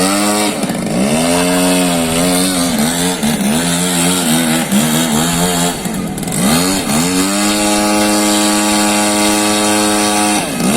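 RC Extra 300 model aerobatic plane's engine running in flight. Its pitch rises and falls repeatedly with throttle changes and passes, then holds high and steady for about three seconds before dropping near the end.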